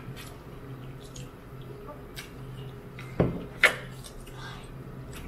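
A person eating raw toro tuna: soft chewing and mouth noises with small clicks over a low steady hum, and two sharp clicks about half a second apart a little past halfway.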